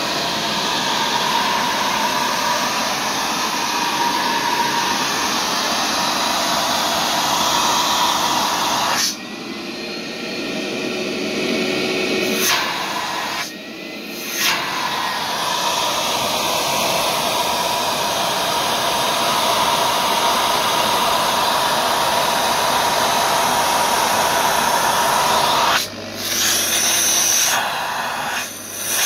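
Cleanfix TW 300 wash-vacuum (carpet and upholstery cleaner) running: a steady rushing of air with a faint whine. It goes dull and quieter for a few seconds about a third of the way in, and again near the end.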